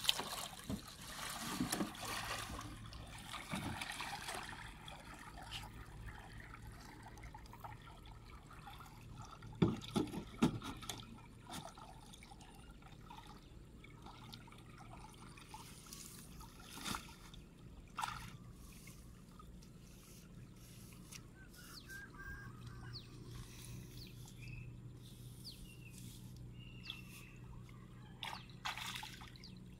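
Shallow water trickling and sloshing around a hand-worked fish trap in field water, with a few short splashes or knocks about ten seconds in and again a little later.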